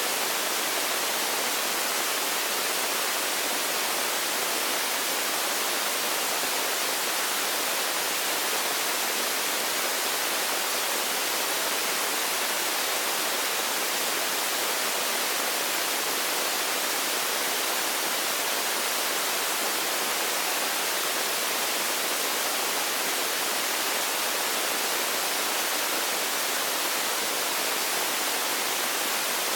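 Steady, even hiss like static, with no other sound on top of it.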